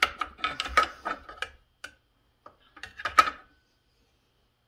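Metal clinks and knocks as the bottom handle is fitted onto a McCulloch Super Pro 70 chainsaw body: a quick run of clatter in the first second and a half, then another short run of clicks about three seconds in.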